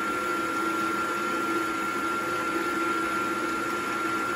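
Milling machine spindle running steadily, a constant high whine over a lower hum, as a chamfering bit turns just above the lug hole of an aluminum wheel before it starts cutting.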